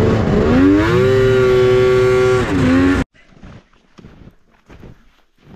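Two-stroke snowmobile engine under throttle: its pitch rises under a second in, holds high, then drops near the two-and-a-half-second mark. The engine sound cuts off abruptly about three seconds in, leaving only faint scattered soft sounds.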